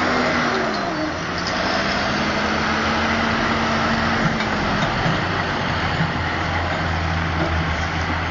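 John Deere tractor engine running under load while pushing up grass silage on the clamp; its pitch dips slightly about a second in, then holds steady.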